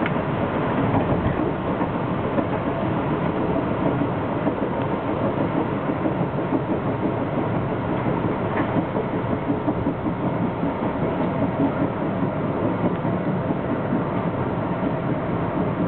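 Metro-North M3 electric multiple-unit railcar running at speed, heard from inside the car: a steady rumble and rattle of the wheels on the track.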